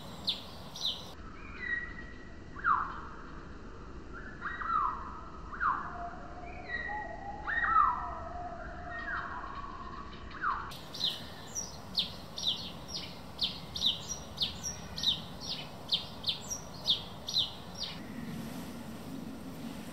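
Small birds calling: a quick series of short, high, downward-slurred notes, about two a second. Through the first half these give way to lower whistled notes that slide down in pitch, several in a row.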